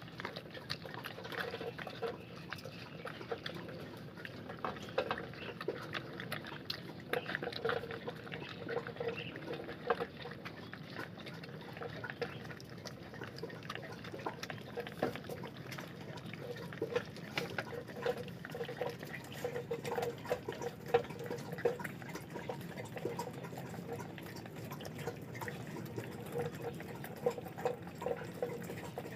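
Four-week-old Belgian Malinois puppies eating softened wet food from a stainless steel bowl: continual chewing and lapping with many small, irregular clicks.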